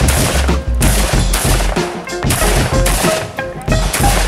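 Background music with a steady beat, with rapid gunshots mixed in.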